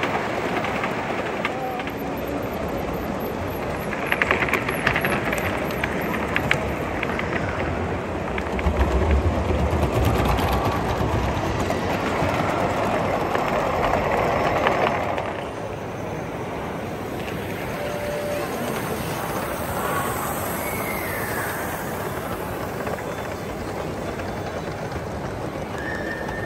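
Gauge 1 model train rolling along the track, loudest as it passes close in the middle, then dropping off suddenly at about fifteen seconds. Voices chatter in the background.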